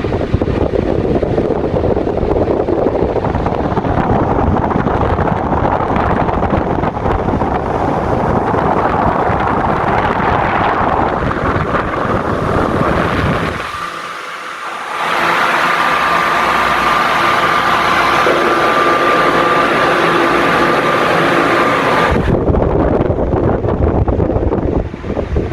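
Dômina Eco 60 cm eight-blade wall fan running, its airflow rushing over the microphone. About fourteen seconds in, the rush drops briefly, then for several seconds a steady high whine with lower tones sits over it before the plain rush returns.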